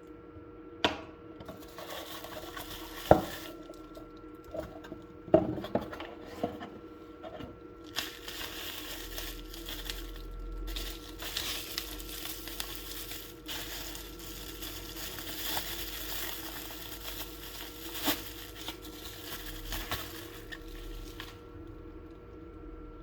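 Knife packaging being handled: a few sharp knocks in the first several seconds, then a long stretch of rustling and crinkling as the wrapping is worked open, which stops shortly before the end.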